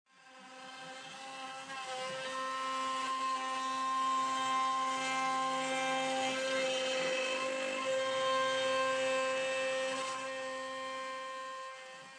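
CNC router spindle whining steadily while its end mill cuts into a laminated wood paddle blank. The sound fades in over the first couple of seconds, then holds at an even pitch with the cutting noise underneath.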